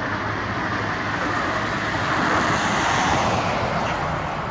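A vehicle passing: a broad rushing noise that swells to a peak about two to three seconds in, then fades.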